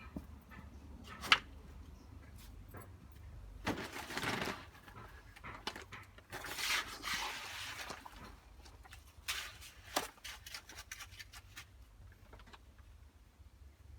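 Wet concrete mix being scraped and spread with a tool in a few separate strokes of about a second each, with a sharp knock about a second in.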